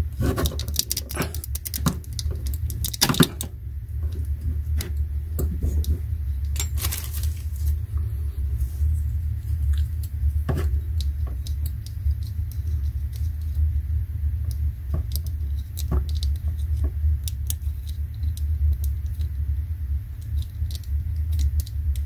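Light clicks and rustles of fingers handling and twisting stripped copper wire ends together for a splice, over a steady low rumble. The clicks come thickest in the first few seconds and then thin out to scattered ticks.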